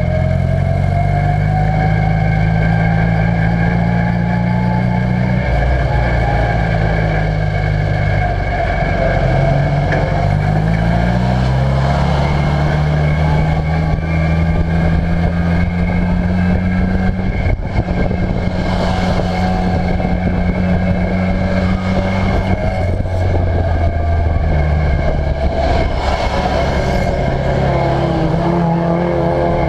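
Ministox stock car's engine heard from inside the cockpit under race driving, its revs rising and falling again and again through the laps, with a steady high whine running alongside. A couple of brief rushing noises come in past the middle and again near the end.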